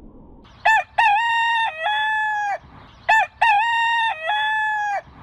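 Rooster crowing twice: two loud cock-a-doodle-doo calls about two and a half seconds apart, each a short opening note followed by a long held note.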